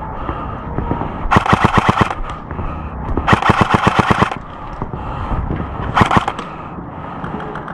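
Airsoft rifle firing three bursts on full auto, about eleven shots a second: a short burst, a longer one, then a very short one near the end.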